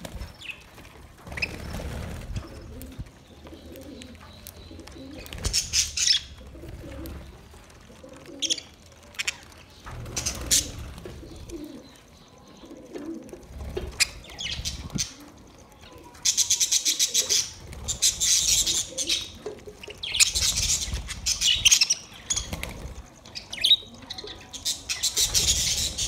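A flock of budgerigars chirping and chattering, with wing-flapping as birds flutter about. The chatter comes in short scratchy bursts, growing denser and louder in the second half.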